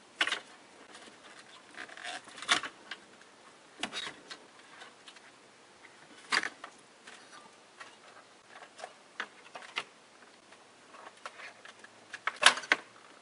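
Scattered plastic clicks and knocks as the factory radio's wiring-harness and antenna connectors are unplugged and the radio unit is handled, with soft rustling of wires between. The sharpest knock comes near the end.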